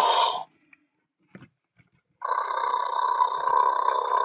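Electronic toy Tyrannosaurus roaring through its small speaker: one roar cuts off about half a second in, a faint click follows, and a second long roar starts a little after two seconds.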